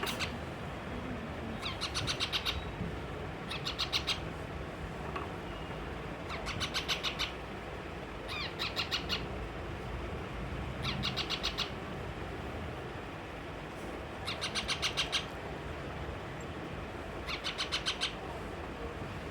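Baby parrot calling in about seven short bursts of rapid, pulsed, chattering cries, one every two to three seconds.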